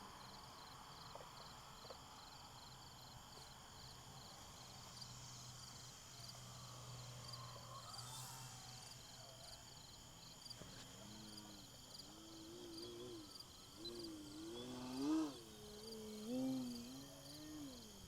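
Insects chirping in a steady, evenly pulsing rhythm. In the last few seconds a wavering whine joins in, rising and falling in pitch and loudest near the end.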